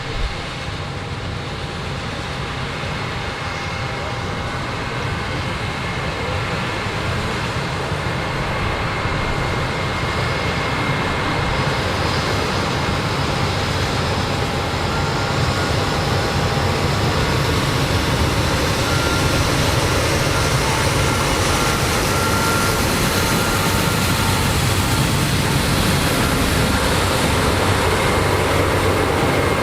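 Heavy harvest machinery running steadily in a corn field, growing gradually louder as it comes closer, with a short knock right at the start.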